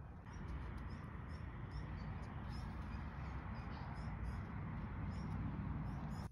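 Outdoor ambience: wind rumbling on the microphone, with faint short high-pitched chirps repeating throughout, like small birds.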